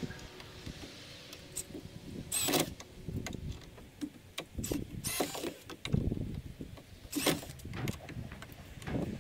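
Cordless drill run in short bursts, about three, driving screws into the wooden frame overhead, with small clicks and knocks of handling between them.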